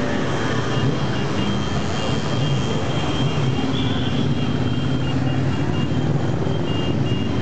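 A procession of motorcycles (cruisers, sport bikes and scooters) riding slowly past, several engines running at low revs together in a steady mixed drone.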